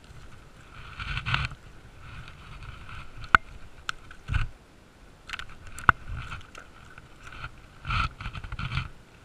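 Knocks, scrapes and rustling in a small fishing boat while a hooked largemouth bass is being brought in, with two sharp clicks a few seconds apart and a couple of dull thuds.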